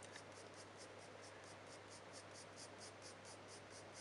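Coloured pencil (Caran d'Ache Luminance, Sepia 10%) stroking lightly over smooth hot-pressed watercolour paper, a faint, quick scratching at about six short fur strokes a second.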